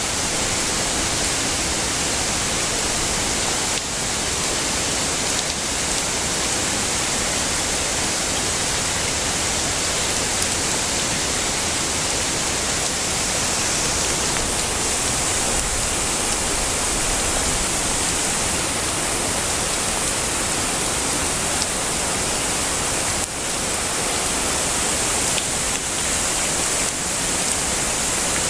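Heavy rain falling steadily: a dense, even hiss of drops with no thunder.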